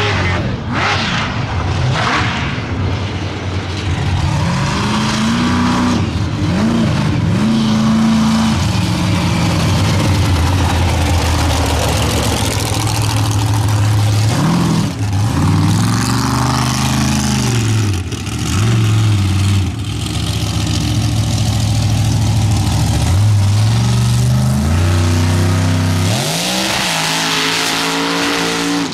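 Supercharged methanol-burning mega truck engine revving hard on the dirt track, its pitch climbing and dropping again and again as the throttle is worked on and off.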